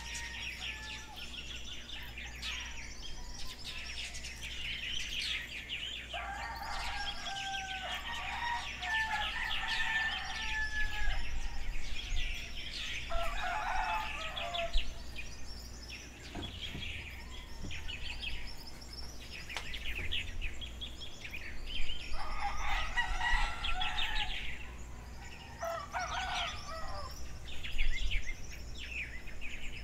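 Morning outdoor ambience: many small birds chirping continuously, with a rooster crowing several times over them and a low steady rumble beneath.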